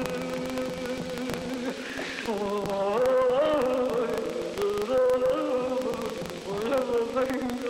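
Music: a singing voice, or an instrument much like one, holding long notes that step and bend slowly up and down, over a steady crackle.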